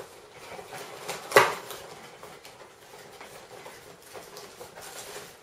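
Long cardboard box being handled: one sharp knock about a second and a half in, then quiet rustling and scraping of cardboard as its end flap is opened.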